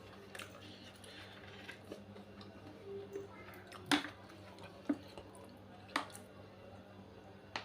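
Eating noises from a person eating rice and sambal: a few sharp, wet clicks roughly a second apart, over a steady low hum.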